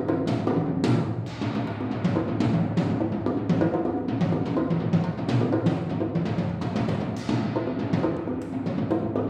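Tom-toms played as a solo percussion part: a fast, continuous run of strokes, the drums ringing under one another.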